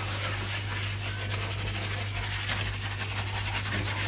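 High voltage from a salvaged microwave-oven transformer arcing and burning through wood in fractal (Lichtenberg) wood burning: a steady crackling hiss over a low mains hum, with the hiss stopping suddenly at the very end.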